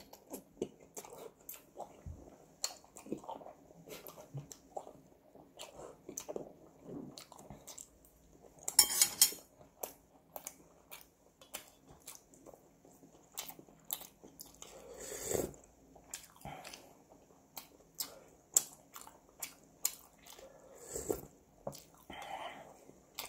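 Close-up eating sounds of a person eating ramen noodles: chewing with many small wet mouth clicks and smacks, and two longer slurps about nine and fifteen seconds in.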